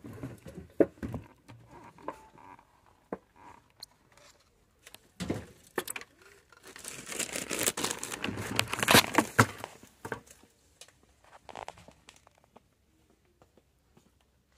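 Rustling and crinkling handling noise with scattered clicks and knocks, densest and loudest about seven to ten seconds in, then dying away near the end.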